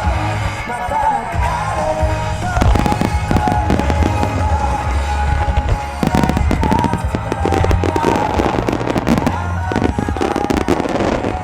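Aerial fireworks bursting in rapid, dense volleys of bangs and crackles over music with a heavy bass, the barrage thickening from about two seconds in.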